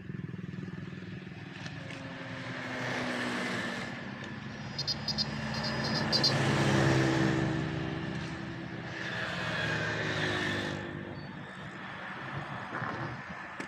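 A motor vehicle engine running, swelling and fading more than once, with a short run of rapid metallic clicking about five seconds in.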